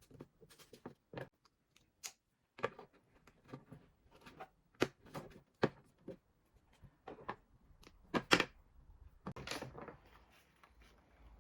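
Small plastic toy blocks and pieces being handled, giving irregular clicks and knocks, a few of them sharper and louder.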